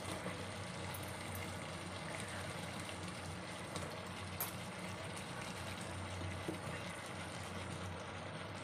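Steady low hum and hiss of kitchen background noise, with a few faint taps as handfuls of chopped capsicum drop into the curry pot.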